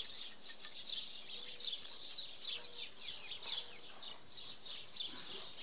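Small birds chirping: a steady run of short, quick, falling chirps, a few each second.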